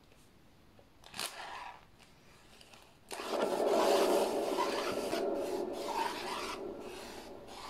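A Lazy Susan turntable being spun by hand, its bearing giving a rasping, scraping noise. There is a short scrape about a second in, then from about three seconds in a longer rasping spin that slowly fades as the turntable slows.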